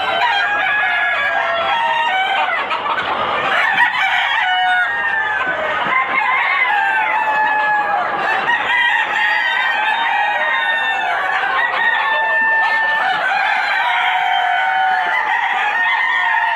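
A flock of desi chickens calling and clucking, many voices overlapping continuously, with some longer drawn-out calls among them.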